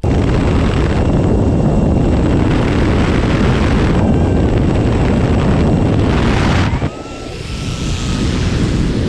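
Loud wind and engine noise from a skydiving jump plane with its door open. About two-thirds of the way through, the noise drops suddenly, then builds back up as the rushing wind of freefall.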